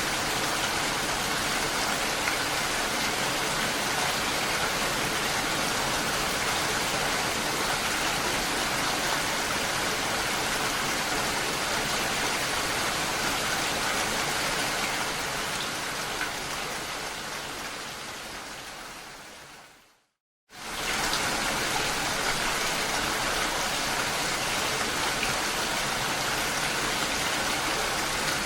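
Steady rain falling on a lake, an even hiss. Near the end of the first two-thirds it fades out over a few seconds, stops for a moment, then comes back at full level at once, as at the joint of a looped recording.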